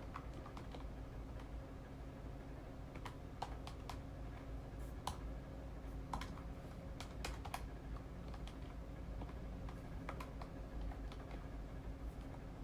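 Keys being pressed at a desk: scattered, irregular clicks, a few at a time with pauses between, over a steady low hum.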